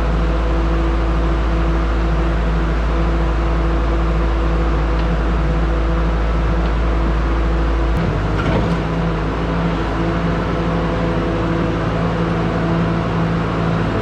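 ASV SR-80 skid steer's engine running steadily. About eight seconds in, the deep rumble drops away and the engine note changes, with a brief clatter just after.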